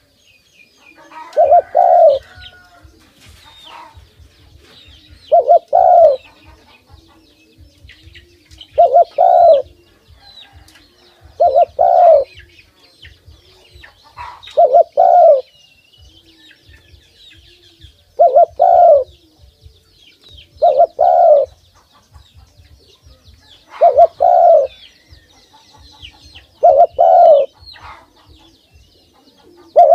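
Spotted dove cooing close by, one short phrase of two or three soft notes repeated about every three seconds.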